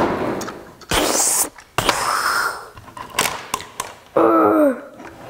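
Plastic clicks and knocks from a Tobot Athlon Rocky transforming robot toy being handled, posed and set down on a table, mixed with a child's mouth sound effects: hissy whooshes, then a short sound that drops in pitch about four seconds in.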